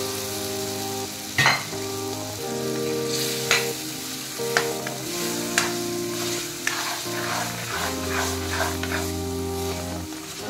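A metal ladle stirring boiled chickpeas into a sizzling masala in a kadai, scraping and knocking against the pan a dozen or so times, most sharply about a second and a half in. Background music with long held notes plays along.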